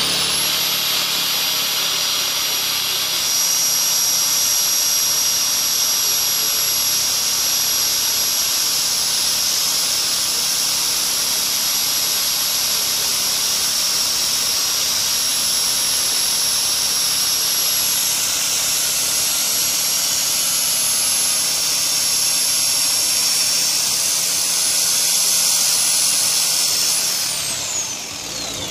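Power saw running at full speed with a steady high-pitched whine. It is just reaching speed as the sound begins and winds down with a falling whine near the end.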